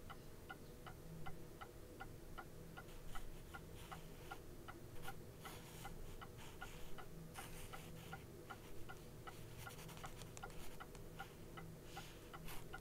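Clock ticking steadily, about two ticks a second, with faint soft rustles now and then.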